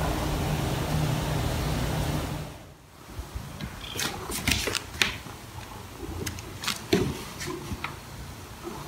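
Steady low hum and hiss of room noise, which stops near the three-second mark. Then comes a run of scattered light taps and scuffs from a hand and a cat's paws on a hardwood floor, the sharpest about seven seconds in.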